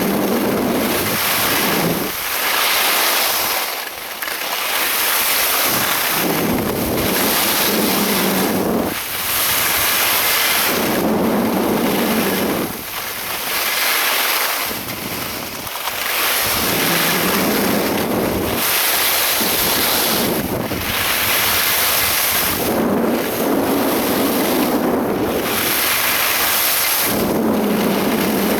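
Loud wind noise buffeting an action camera's microphone during a downhill ski run. A low rumble comes and goes every couple of seconds over a steady rushing hiss.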